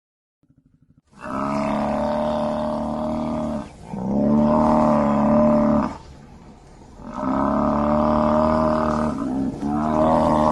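Lion roaring: a series of long, drawn-out roars, each about two seconds, with short breaks between them.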